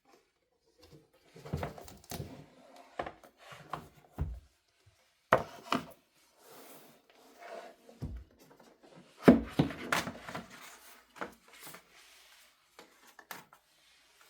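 Household handling sounds: irregular knocks, taps and rubbing of objects being moved and set down, with the sharpest knocks about five and nine seconds in.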